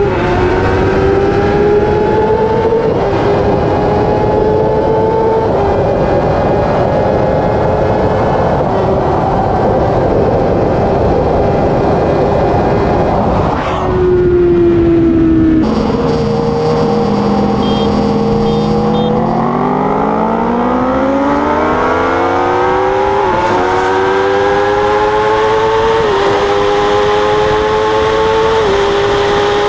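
Inline-four superbike engine pulling hard through the gears, its pitch climbing in each gear and dropping at each upshift, over heavy wind rush. About halfway through it falls to a lower, steadier note for a few seconds, then climbs again through three quick upshifts.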